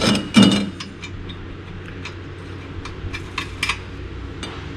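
Metal hand tools and parts clinking while a tie rod end is fitted to the front steering knuckle: two loud metallic clanks in the first half second, then scattered light clicks.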